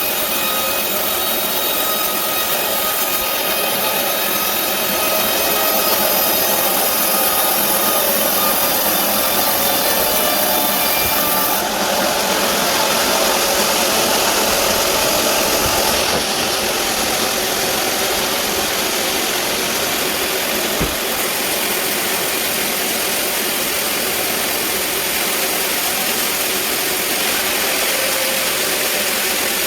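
Band sawmill running and sawing through a large teak log, a steady loud machine noise with a whine over it. The sound changes character about twelve seconds in and again about four seconds later, and there is a single short knock near the twenty-first second.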